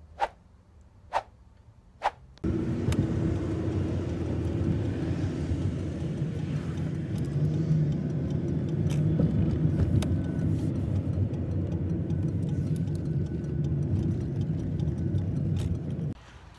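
Car on the road: a steady low rumble of engine and tyre noise that starts abruptly a couple of seconds in and cuts off abruptly near the end. Before it, a few soft clicks in near quiet.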